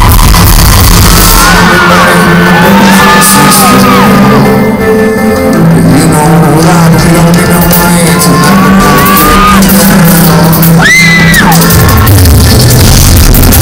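Live pop-rock band playing loudly, with a sung lead vocal over held bass notes and drums, echoing in a large hall.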